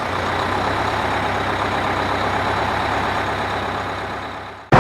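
A school bus's engine running steadily with a low hum, fading away near the end.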